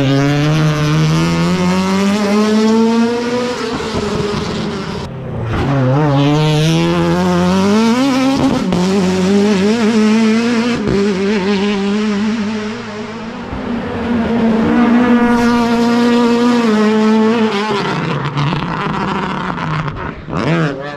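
Ford Escort Mk1 rally car engine revved hard at full throttle. Its pitch climbs, drops back and climbs again over several passes, with abrupt cuts between them.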